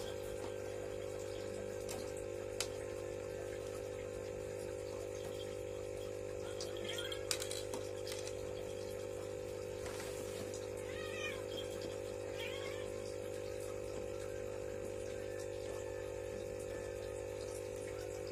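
A steady hum with light knocks and clicks from a plastic hamster house and wire cage being handled, loudest as a sharp click a few seconds in and a brief cluster of knocks about halfway through.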